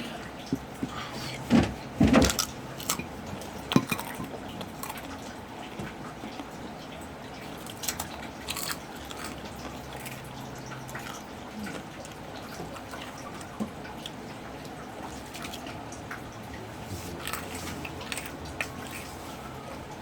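Eating sounds from chewing pork chicharon: scattered sharp clicks and crunches over a quiet background, the loudest cluster about two seconds in.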